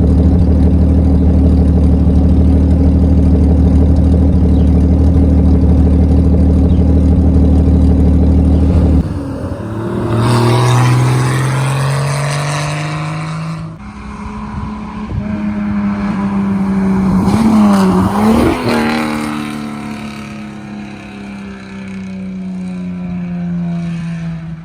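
A 1998 Jeep Cherokee XJ's 4.0-litre straight-six, running with no catalytic converter through a 2.5-inch side-dump exhaust with a mini Cherry Bomb muffler. It holds a steady loud drone at first. About nine seconds in it accelerates through a gear, rising in pitch, shifts, then pulls past, getting loud and dropping in pitch as it goes by.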